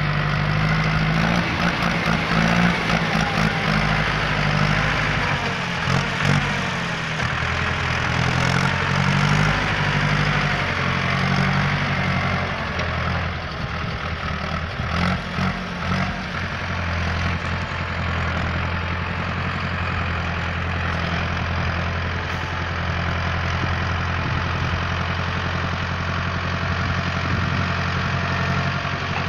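Ostrówek backhoe loader's diesel engine running while the machine drives and manoeuvres, its pitch rising and falling through the first half, then holding steady.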